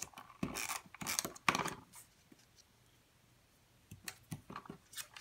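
Creative Memories tape runner drawn across small pieces of cardstock in three short strokes in the first two seconds, laying down adhesive. About four seconds in come light clicks and paper handling as the pieces are pressed into place.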